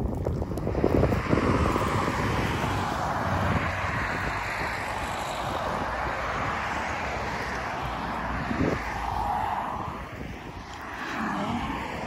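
Traffic on a two-lane road: several cars passing one after another, their tyre and engine noise swelling and fading. Wind buffets the microphone near the start.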